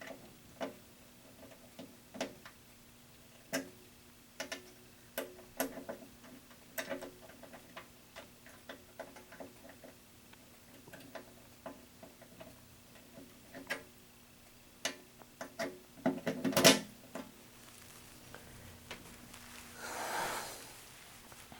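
Irregular light clicks and taps over a faint steady hum, with a louder clatter of clicks about three quarters of the way through and a brief soft rushing noise near the end. No alarm tone is sounding.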